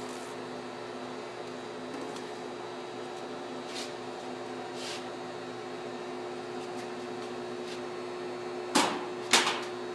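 Steady machine hum under light plastic clicks as the lid of a clear plastic vacuum chamber is taken off and set aside. Near the end, two sharp knocks about half a second apart as a potted plant is lifted out of the plastic bowl.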